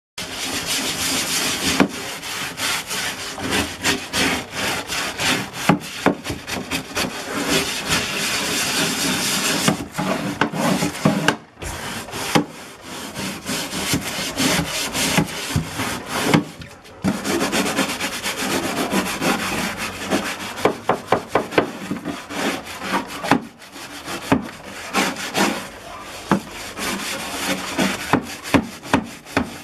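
Scrub brush scrubbing the concrete walls and floor of a water tank in foamy detergent water: fast back-and-forth scraping strokes, with short pauses about a third and half way through.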